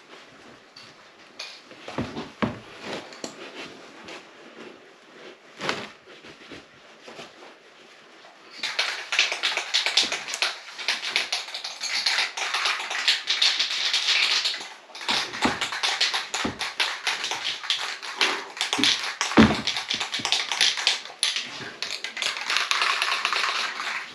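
Paper shop towel rubbed briskly over a plastic boat windshield to clean it before painting: a dense, scratchy rubbing full of small clicks, with a few knocks at first, getting much louder about eight seconds in.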